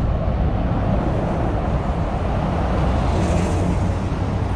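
Steady low rumble of a motor vehicle's engine and road noise.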